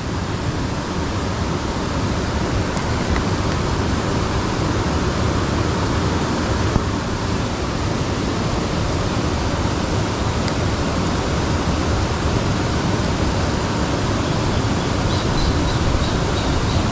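Steady rushing of flowing water, an even hiss that holds the same level throughout, with a single faint click about seven seconds in.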